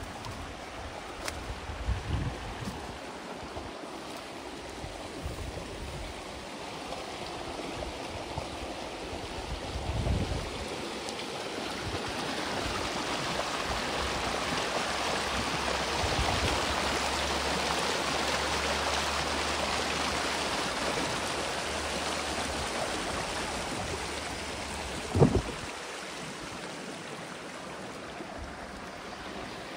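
Creek water running steadily, swelling louder through the middle. A few low thumps break through it, the sharpest and loudest near the end.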